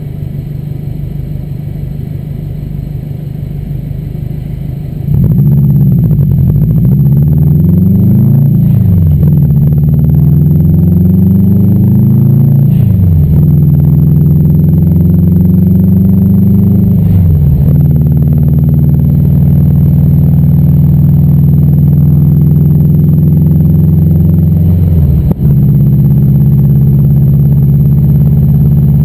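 Subaru WRX turbocharged flat-four heard from inside the cabin. It idles, then pulls away about five seconds in and accelerates through the gears, its pitch climbing and dropping at each upshift. It then settles into a steady cruise, with one brief break near the end.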